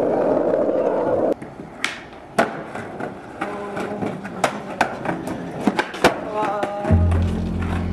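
A steady rushing rumble that cuts off about a second in, then a run of sharp skateboard clacks and knocks on concrete with voices in between. A hip-hop beat with heavy bass starts near the end.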